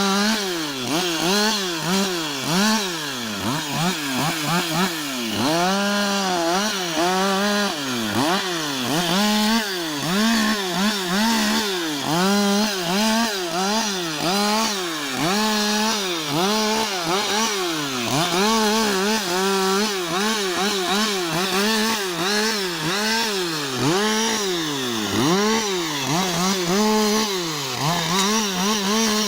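Two-stroke chainsaw cutting wood. The engine pitch sags repeatedly as the chain bites into the wood, then climbs back to full revs, roughly every second or two.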